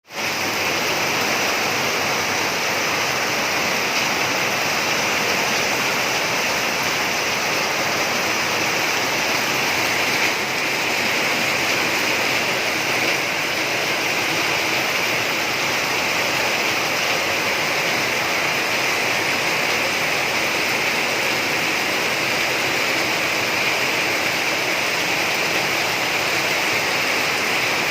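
Heavy rain falling steadily, a dense even hiss of water with no letup.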